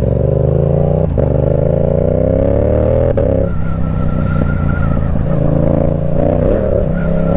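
Yamaha YZF-R7's parallel-twin engine through a Yoshimura R77 exhaust, accelerating with its pitch climbing steadily for about three and a half seconds. The pitch then drops and the engine runs on at a lower, steadier pitch.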